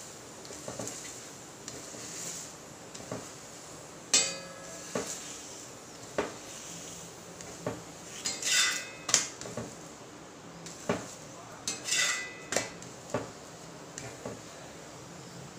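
Flat metal spatula clinking and scraping on an iron tawa as a paratha is pressed and turned: about a dozen separate strikes and scrapes, the loudest about four seconds in with a brief metallic ring.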